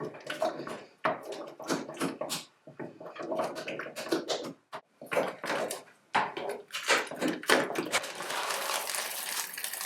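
Spoon stirring thick ricotta filling in a bowl: irregular scrapes and soft knocks, with a denser stretch of steady scraping near the end.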